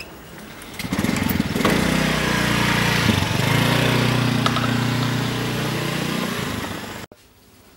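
Motorcycle engine speeding up as the bike pulls away, running steadily with small shifts in pitch, then cut off abruptly near the end.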